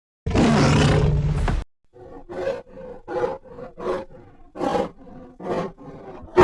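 King Kong giant-ape creature sound effect: a loud roar lasting about a second, followed by a string of shorter grunts, about one every three-quarters of a second.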